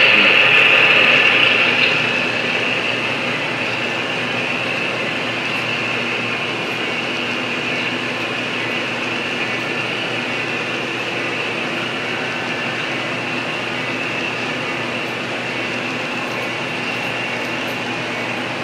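HO scale model freight train running past on its track. It is loudest for about the first two seconds as the locomotives go by, then settles into a steady rolling of the covered hopper cars' wheels over the rails.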